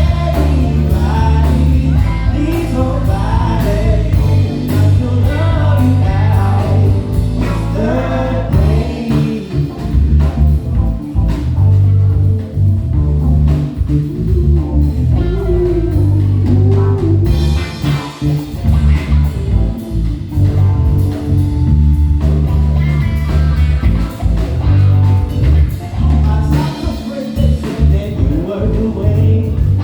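Live band playing: electric bass and drum kit keep a steady groove under keyboards and a wavering melodic lead line.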